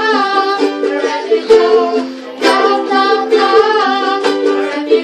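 Two ukuleles strummed steadily while two women and a girl sing together.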